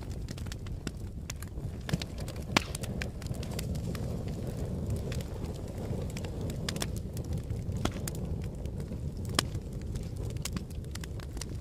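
Wood fire burning: a steady low rumble of flames with frequent sharp crackles and pops, a couple of them louder than the rest.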